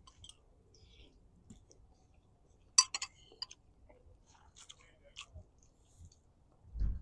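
Scattered small clicks and clinks of kitchen handling, with one sharp clack about three seconds in and a dull low thump near the end.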